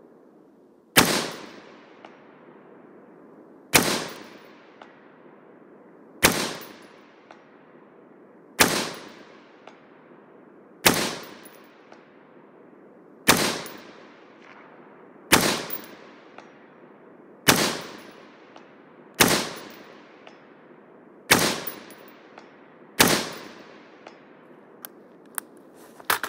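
A 5.56 AR-style semi-automatic rifle fired slowly, eleven single shots about two to two and a half seconds apart. Each shot is followed by a long fading echo. A few light clicks of rifle handling come near the end.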